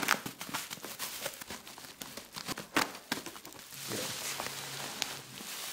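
Scissors snipping through black plastic bubble-wrap packaging, with sharp crinkling clicks. About four seconds in this turns to a denser rustle as the bubble wrap is peeled back from a cardboard box.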